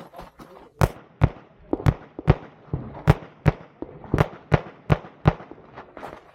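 Glock 34 9mm pistol fired in a rapid string of about a dozen shots, mostly in quick pairs roughly half a second apart, as targets are engaged during a practical-shooting stage.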